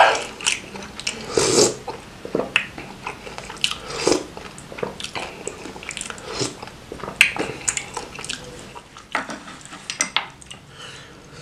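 Close-miked mouth sounds of eating bakso meatballs in spicy broth: wet chewing and many short lip smacks, with a few louder mouthfuls in the first few seconds.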